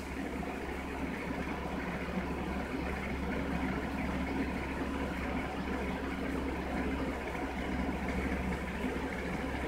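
Steady low hum with a constant background hiss, unchanging and without distinct events.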